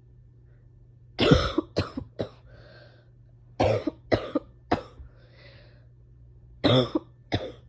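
A person in a painful coughing fit: three bouts of two or three loud coughs each, with quieter breaths between the bouts.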